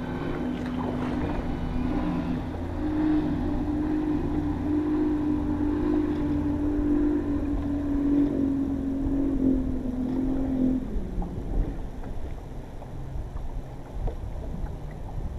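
Electric trolling motor humming steadily, its pitch stepping slightly a few times before it cuts off about eleven seconds in, over low wind and water rumble.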